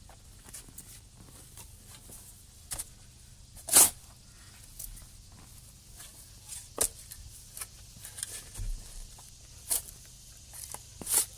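Digging in garden soil: irregular short scrapes and crunches of a tool cutting into dirt, with a louder one about four seconds in and another near the end.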